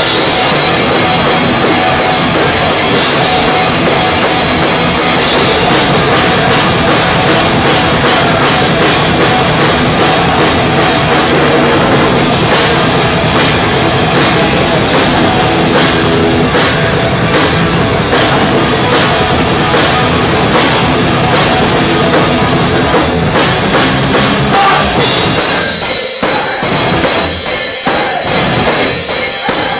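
A live thrash metal band playing loud and fast, with a full drum kit driving rapid kick and cymbal hits under the rest of the band. Near the end it breaks into stop-start hits.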